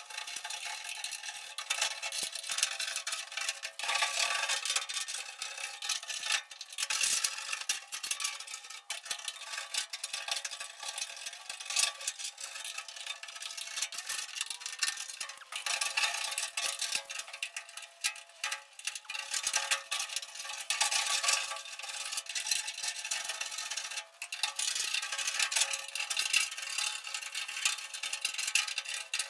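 Hand scraper scraping old gooey tar sealer off the inner steel panel of a 1974 Ford F250 door: an uneven, scratchy scraping in short strokes with small clicks, swelling and easing as the blade works.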